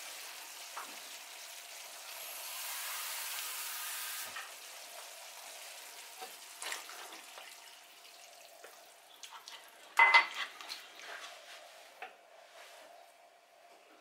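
Chopped onion and carrot sizzling in oil in a frying pan while a wooden spoon stirs them; water is poured in from a glass partway through, and the sizzling then fades to a faint simmer. A single sharp knock about ten seconds in.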